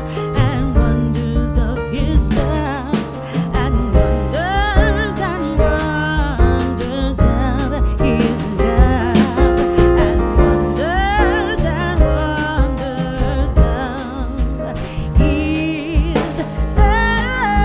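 Background music: a song with a singing voice over bass, guitar and a steady beat.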